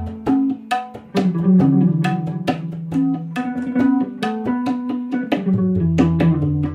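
Instrumental background music with a quick, steady beat over a stepping bass line.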